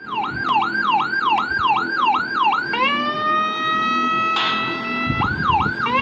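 Electronic siren module sounding through a 10 W oval horn speaker: quick falling yelp sweeps about three a second, then a rising whoop into a long steady tone that a hiss joins partway, and the yelp sweeps return near the end.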